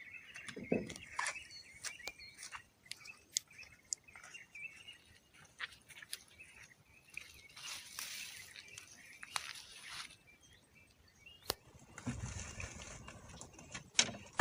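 Birds chirping faintly, with a wavering call repeated over the first few seconds. Scattered short clicks and crunches run throughout, and a stretch of rushing noise comes near the end.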